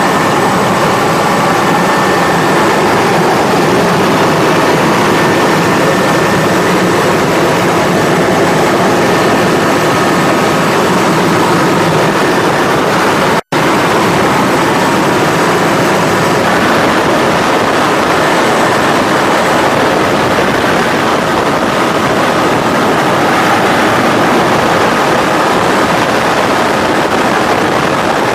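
Rescue helicopter's engines and rotor heard from inside the cabin at the open hoist door: a loud, steady noise with a faint high whine. It drops out for an instant about halfway through.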